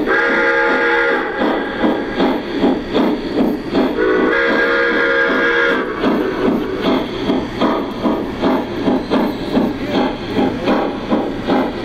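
Model steam locomotive's electronic sound system: steady steam chuffing, about two beats a second, with two long chime-whistle blasts, one at the start and one about four seconds in.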